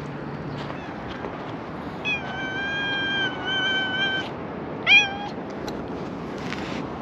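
Domestic cat meowing: two long, drawn-out meows back to back about two seconds in, then a short, louder meow that slides up in pitch about five seconds in, over wind noise.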